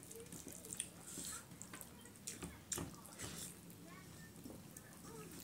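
Fingers mixing rice and curry on steel plates, with chewing: soft wet squishing and scattered light clicks.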